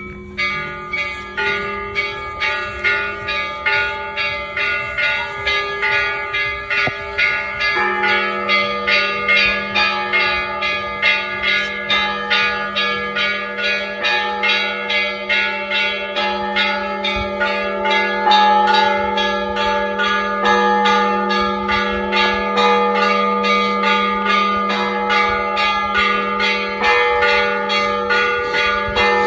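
Church bells ringing in a peal: several bells struck in quick succession, about two or three strikes a second, their tones ringing on over each other. A deep bell hums beneath them and grows louder about eight seconds in.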